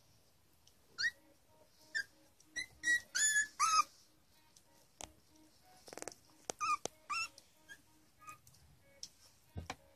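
Three-week-old Pembroke Welsh Corgi puppies squeaking and whimpering in short, high-pitched cries that rise and fall. They come singly at first, then in a quick cluster, with a few more later and some soft knocks as they tumble about.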